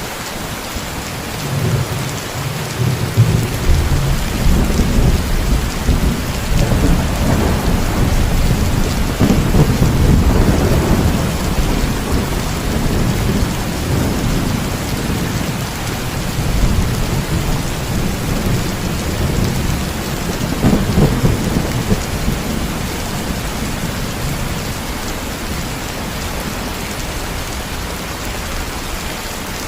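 Steady heavy rain with rolling thunder. The deep rumble builds a second or two in, is loudest around a third of the way through, swells again past the middle, and then fades, leaving the rain on its own.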